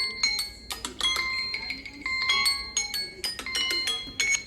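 Smartphone alarm and timer ringtones playing: quick chiming, bell-like electronic notes in a busy melodic pattern.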